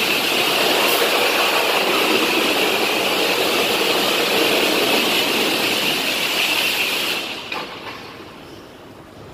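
High-pressure water spray from a truck-wash pressure wand hitting a semi truck: a loud, steady hiss that falls away about seven seconds in.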